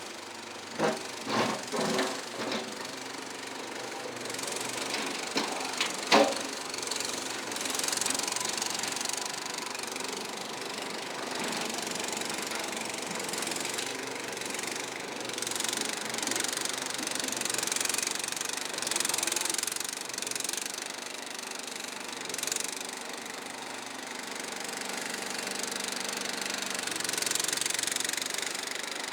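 Kohler engine of a Struck Magnatrac Junior mini bulldozer running steadily, rising and falling in level. A few sharp knocks come in the first three seconds, and a single loud click about six seconds in.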